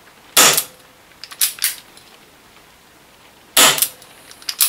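Chiappa Rhino 50DS CO2 airsoft revolver firing twice in single action, a sharp report about half a second in and another near the end. After each shot comes a short cluster of lighter clicks as the hammer is thumbed back for the next shot.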